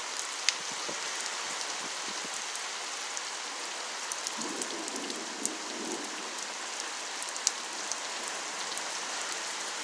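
Heavy rain falling steadily: a constant hiss of rain with scattered sharp ticks of single drops hitting something close by.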